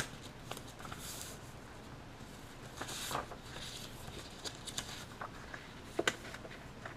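Paper worksheet being handled and moved about by hand: faint rustles and light ticks, with a sharper rustle about six seconds in.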